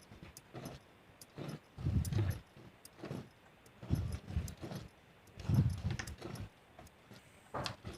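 A cow being milked by hand, milk squirting into a metal pail in rhythmic spurts.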